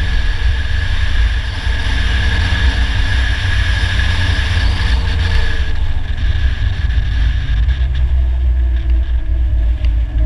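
Polaris Slingshot's four-cylinder engine running under way, buried in heavy wind rumble on the hood-mounted microphone; the engine note drops a little about six seconds in.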